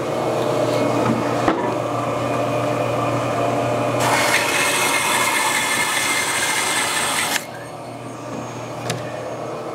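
Shop bandsaw running with a steady hum, its blade cutting through a wooden slab with a loud hiss from about four seconds in; the cut ends sharply a little past seven seconds and the saw runs on more quietly.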